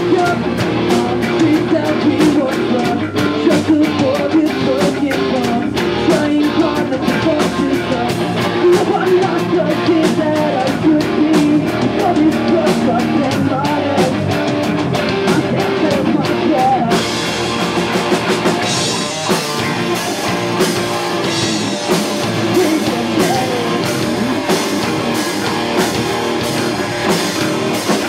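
Live pop-punk band playing loud, with electric guitars, bass, a drum kit and singing. The drum pattern changes about seventeen seconds in.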